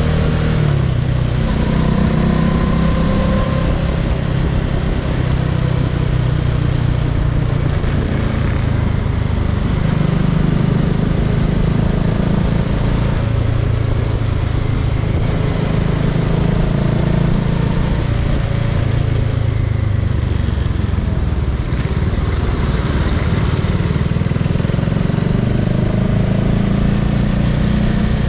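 Bajaj Dominar 400's single-cylinder engine running under way in traffic, its pitch rising and falling as the bike speeds up and eases off, over a steady rush of wind and road noise.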